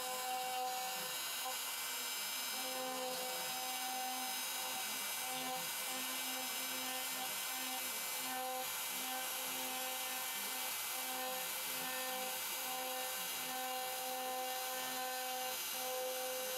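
Home-built CNC router carving wood with a 1/4-inch ball bit on a roughing pass: a steady high spindle whine with a lower tone that starts and stops every second or so.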